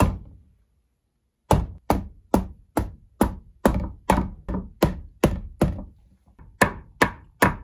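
Mallet striking the back of a cleaver over and over, knocking the blade down through a spaghetti squash on a wooden cutting board. One knock, a pause of about a second and a half, then quick sharp knocks about two or three a second, with a short break near the end.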